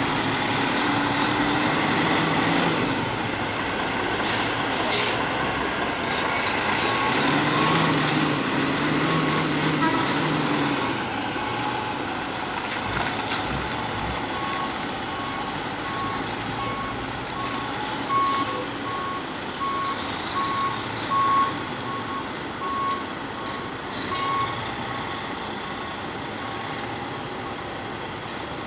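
Diesel engine of a semi-truck hauling a shipping container running as it manoeuvres, with its reversing alarm beeping at a steady pace from about eight seconds in until near the end. A few short air hisses come about four to five seconds in.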